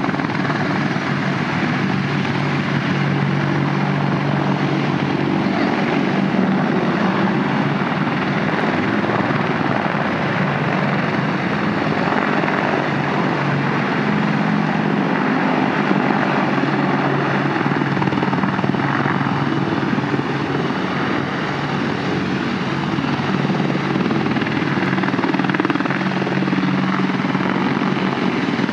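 Robinson R44 helicopter in flight: a loud, steady drone of its piston engine and rotor with a few low hum tones, unchanging throughout.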